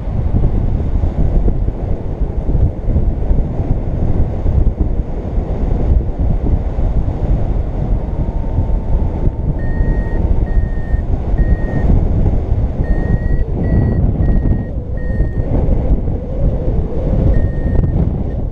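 Heavy wind rushing over the microphone of a paraglider in flight. About halfway through, a flight variometer starts short, high beeps at one steady pitch, coming in runs of several with gaps, its climb tone showing the glider going up in lift.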